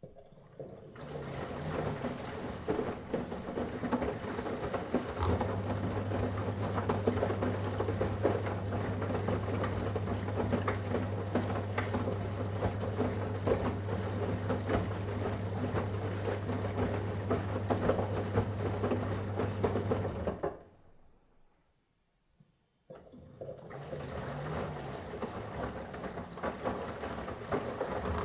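Washing machine in its wash cycle: the drum motor turns with a steady low hum while water and laundry slosh in the drum. About twenty seconds in the drum stops for a couple of seconds of near silence, then starts turning again.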